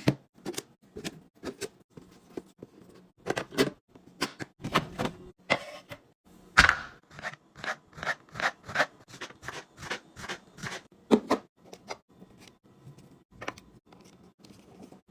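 Food packages and containers being handled and set down while a fridge is restocked: a quick, irregular run of clicks, taps and rustles, the sharpest knock about six and a half seconds in.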